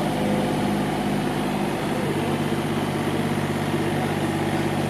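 Diesel engine of an excavator digging a sewer-repair trench, running steadily at a low, even pitch.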